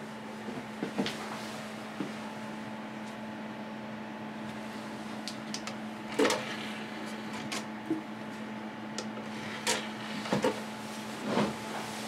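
A newly built desktop PC humming steadily as it restarts after the RAID setup is saved. Scattered clicks and knocks sound over the hum, the louder ones about six seconds in and near the end.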